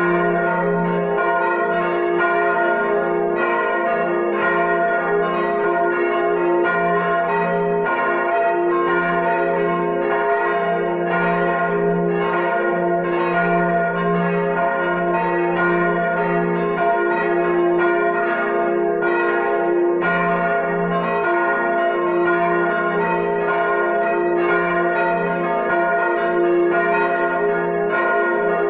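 Full peal of four swinging church bells, tuned D-flat, B-flat, A-flat and F from smallest to largest, their strokes overlapping in a dense, unbroken jangle over the deep hum of the largest bell.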